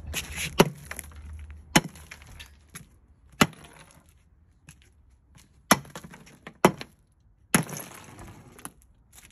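A baseball bat smashing chunks of ice on wooden deck boards: about six sharp blows, each followed by a brief crackle of ice shattering and fragments scattering.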